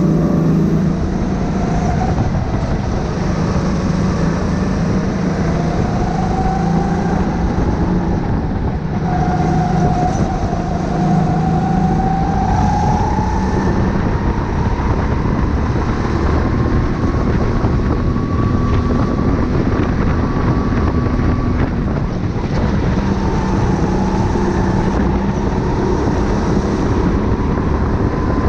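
Go-kart engine heard from the driver's seat of a Sodi kart, its pitch rising and falling slowly as the kart accelerates out of corners and slows into them, over a steady low rumble.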